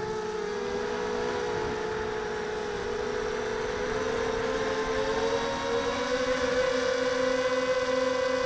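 Quadcopter's Sunnysky 2204 2100kv brushless motors and propellers whining in flight, heard from the onboard camera. The pitch dips slightly near the start, rises about halfway through, then holds high.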